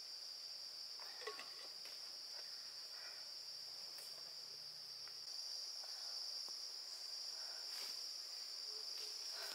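Insects trilling steadily at one high pitch, with scattered faint light knocks and rustles.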